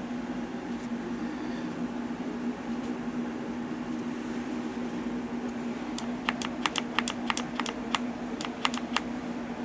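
A quick, irregular run of about a dozen sharp plastic clicks in two groups, from the controls of a Milwaukee M18 Fuel 2857 1/4" hex impact driver being worked by hand, over a steady low hum. The motor stays silent because Tool Lock has just been switched on in the One-Key app.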